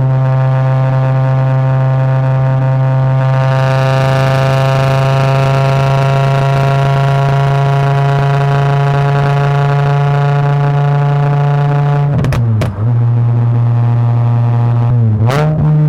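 Naturally aspirated VW 07K 2.5-litre inline-five engine of an MK5 Jetta running under way at steady revs, a steady droning note. Near the end the revs dip sharply and climb back twice.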